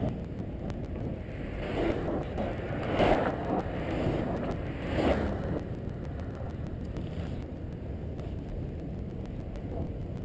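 Steady low road rumble with wind on the microphone. A louder rushing swell builds and fades between about two and five seconds in, with two peaks, like vehicles passing close by.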